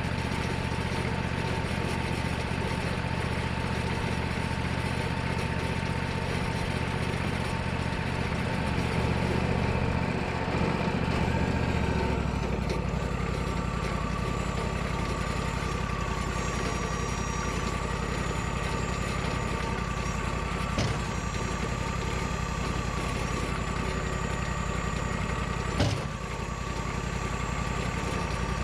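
Sawmill engine running steadily, its low drone shifting about twelve seconds in, with two short sharp knocks in the second half.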